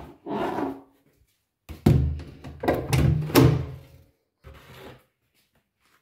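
Footsteps and a door being opened: a scuff near the start, then heavy thuds and a scraping creak for about two seconds, dying away by about five seconds in.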